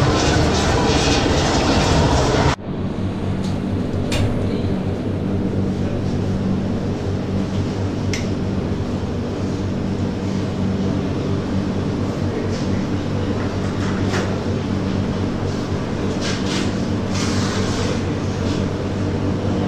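Steady mechanical rumble with a low hum, like machinery running. The sound changes abruptly about two and a half seconds in, losing much of its hiss, then carries on with a few faint clicks.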